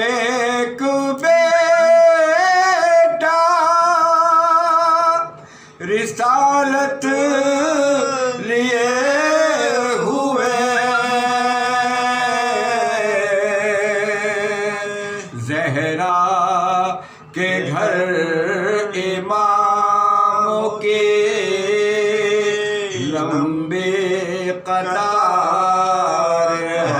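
Two men chanting soz, an Urdu mourning elegy sung with unaccompanied voices. The melody lines waver and are heavily ornamented, with short breaks for breath between phrases.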